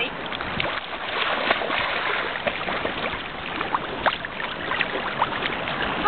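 Shallow seawater sloshing and lapping around someone wading and swimming, with many small splashes over a steady wash of gentle surf.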